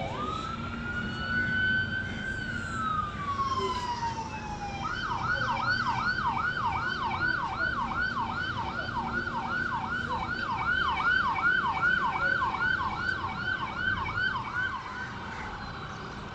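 Police boat sirens: a slow wail rising and falling for the first few seconds, then switching to a fast yelp of about three sweeps a second for some ten seconds, easing back to a slower wail near the end.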